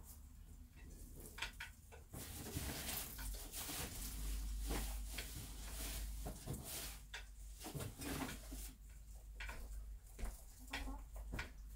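A bantam hen sitting on her nest, making quiet hen sounds, with rustling and small clicks from the hay around her.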